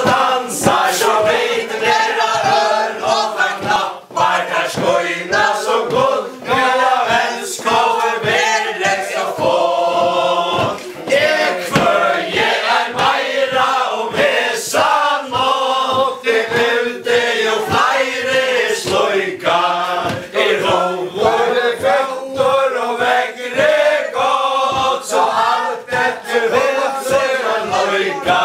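Faroese chain dance: a group of mostly male voices singing a ballad in unison without instruments. A sharp, regular beat about twice a second runs under the singing, from the dancers' stamping steps and clapping.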